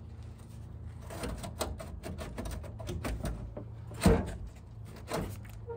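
Scattered clicks and knocks of hand tools and metal parts being handled in a car's engine bay during radiator removal, with one louder knock about four seconds in, over a steady low hum.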